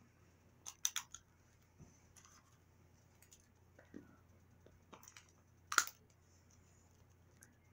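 Scattered small clicks and crinkles of a LOL Surprise toy's plastic wrapping being picked at and opened by hand: two quick ones about a second in, a few faint ones after, and the loudest about six seconds in.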